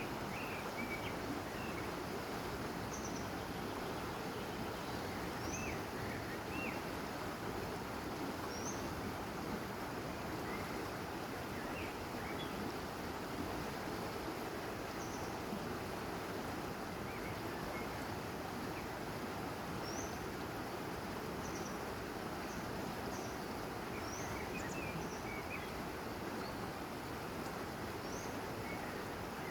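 River water rushing steadily, with songbirds chirping many short, high notes over it.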